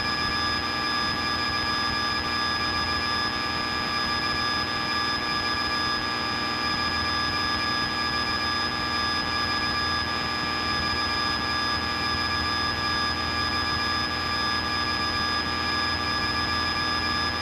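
Steady drone of a Piper Cherokee's engine and propeller in cruise flight, heard inside the cabin, with several high whining tones held steady over it.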